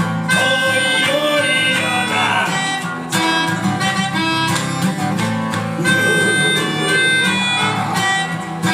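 A band playing an instrumental passage live, with guitar to the fore and held melody notes above it, without singing.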